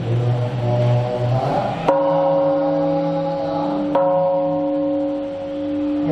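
Large bronze bowl bell struck twice with a striker, about two seconds apart, each stroke ringing on with a steady deep tone. Chanting voices die away just before the first stroke.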